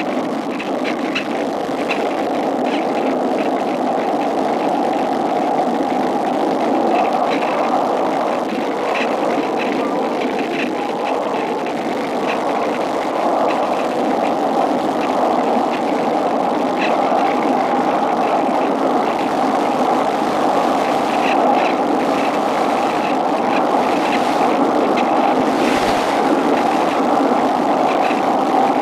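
Steady rush of airflow over the onboard camera microphone of a Cularis electric glider gliding with its motor stopped, with faint scattered ticks.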